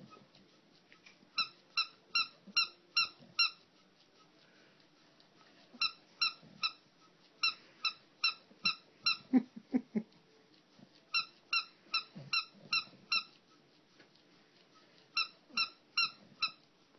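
English bulldog sucking on a tennis-fabric bone toy, making runs of short, high, evenly pitched squeaks, about three a second in groups of five to nine. A few deeper sounds come about nine to ten seconds in.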